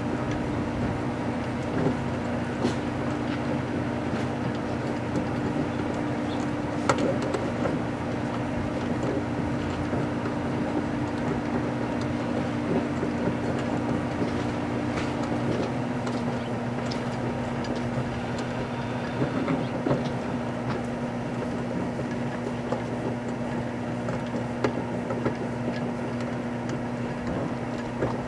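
Microwave oven running with a steady hum that drops slightly in pitch about halfway through, with scattered faint clicks and crackles from the old computer mouse heating inside.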